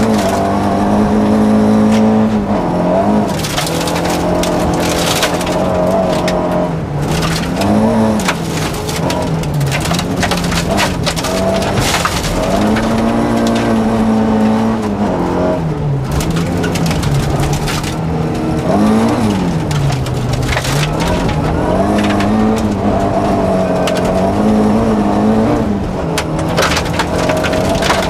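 Rally car engine at full stage pace, heard from inside the cabin, its note repeatedly climbing and dropping as the driver works through the gears and lifts for corners. Loose gravel crackles and rattles against the underbody and wheel arches throughout.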